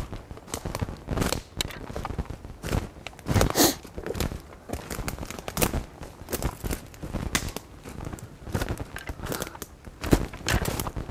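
Footsteps crunching through leaf litter and sticks on a forest floor: an irregular run of crunches and snaps, the loudest about three and a half seconds in.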